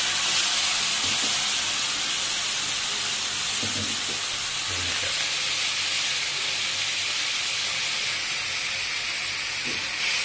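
Soy sauce sizzling and steaming in a hot wok over sautéed garlic and onion: a steady hiss that eases a little near the end, with a few faint knocks.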